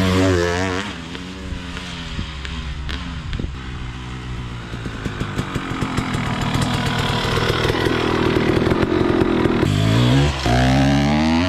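Two-stroke single-cylinder engine of a 2015 KTM 250 SX dirt bike on a Lectron carburetor, revving while riding: quick throttle blips at the start, then a long pull with the pitch and loudness climbing for several seconds, a short drop near the end and another rise.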